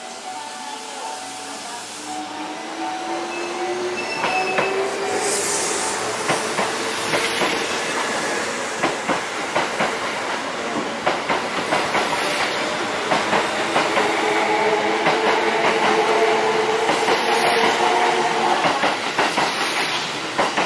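Kintetsu Vista Car limited express running past close by, its wheels clicking rapidly over rail joints, with an electric motor whine that rises in pitch as it gets louder.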